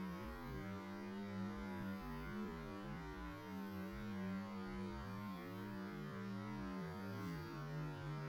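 A low, wavering hum of several tones that slowly bend up and down: ambient sound stretched out by slow-motion playback.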